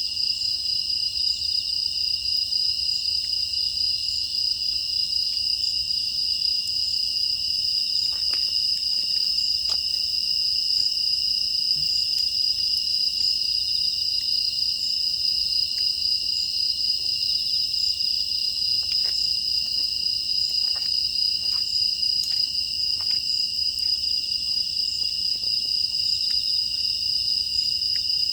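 A dense chorus of grass insects chirring steadily at a high pitch, with a scattering of faint crackles from a wood fire.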